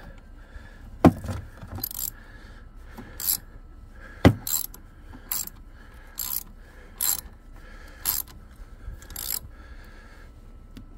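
Hand socket ratchet clicking in short runs, about one a second, as it tightens the 12-volt battery's terminal nut. Two sharp metal knocks come about one and four seconds in.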